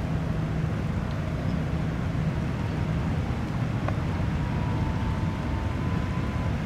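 Low, steady rumble of a large cruise ship passing close by, mixed with wind noise on the microphone. A faint, thin high tone sounds from about four seconds in.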